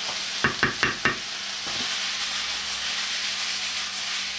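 Finely chopped cauliflower and onion sizzling in oil in a frying pan as a wooden spoon stirs them. Four quick knocks come about half a second in as the spoon strikes the pan.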